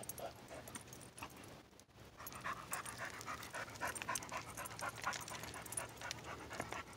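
A dog panting, quick breaths that grow louder about two seconds in.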